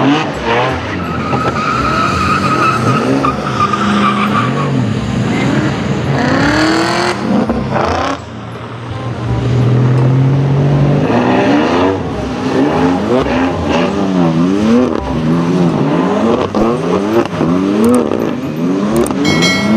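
Lamborghini Diablo's V12 engine revving hard as the car slides through drifts. The pitch rises and falls over and over, about once a second in the second half.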